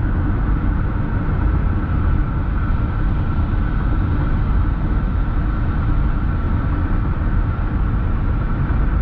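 Steady road noise of a car driving at highway speed, heard inside the cabin: a low rumble of tyres and engine with a faint steady high tone above it.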